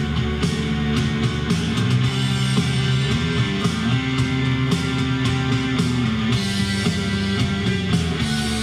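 Guitar-driven rock music playing from small speakers driven by a newly built IC Station 15-watt-per-channel stereo amplifier kit, running from a supply turned down to about 12 volts and still giving plenty of volume.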